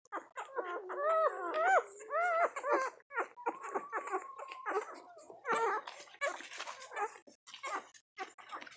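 One-week-old puppies whimpering and squeaking while nursing, with short cries that bend up and down in pitch and one longer held whine. From about halfway through, a rapid run of short clicking sounds takes over.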